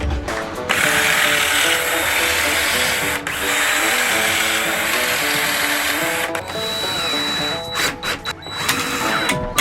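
A power drill running in long spells, driving screws into wooden wall framing, under background music.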